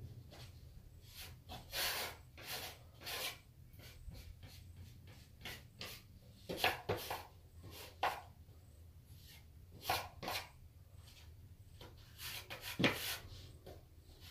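Metal taping knife scraping along a plasterboard corner, pressing paper tape into wet plaster: a run of short, irregular scraping strokes, roughly one a second.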